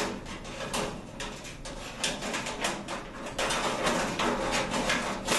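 A metal hinge bracket being handled and fitted against the steel frame of a storage cabinet: a quick run of clinks, taps and scrapes of metal on metal, busier and louder over the second half.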